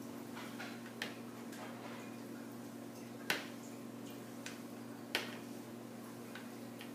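Spatula tapping and scraping against a wooden soap loaf mould while smoothing soap batter: a few irregular sharp clicks, the loudest a little under halfway through, over a steady low hum.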